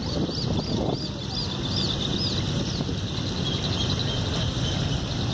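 Wind buffeting the microphone with a steady low rumble, while a bird repeats short chirps about three times a second for the first two seconds or so, then chirps more faintly near the end.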